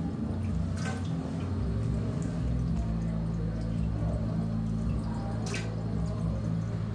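Soft film music holding low sustained notes. Two brief hissing sounds come through, about a second in and again around five and a half seconds.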